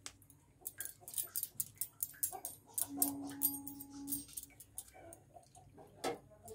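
Metal spatula pressing and tapping on boiled broccoli florets in a plastic colander to squeeze out the water: a run of quick light clicks, with a brief steady whine lasting about a second around the middle and one sharper knock near the end.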